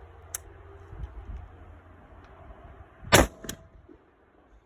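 A single gunshot about three seconds in, followed a moment later by a shorter, sharp click.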